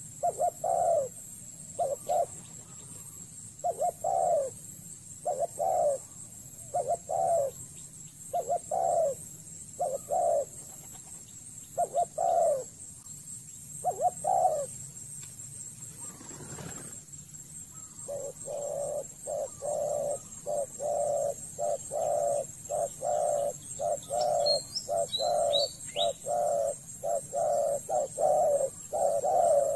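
Spotted doves cooing, short coos repeated about once a second, falling silent briefly just past halfway, then coming quicker and closer together. A few brief high chirps sound near the end.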